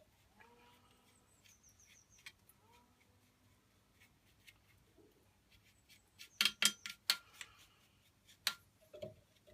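Quiet workshop, then a cluster of sharp clicks and knocks about six seconds in and two more single knocks near the end: small tools and knife-handle parts being handled and set down on a drill press table.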